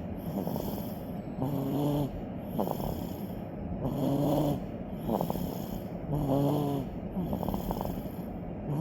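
A 100-day-old baby snoring in its sleep: three pitched, humming snores about two and a half seconds apart, each followed by a short rattling sound on the next breath, and a fourth snore beginning at the very end.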